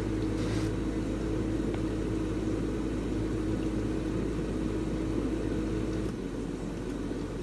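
Samsung DW80R5060US dishwasher running its diagnostic spray test: the wash pump runs steadily with a slight hum while water sprays from the spinning spray arms. The level drops slightly about six seconds in.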